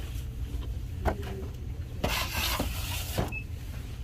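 Steady low hum of a shop's background, with a few light knocks and a brief rustle about two seconds in, from a handheld phone being moved along the shelves.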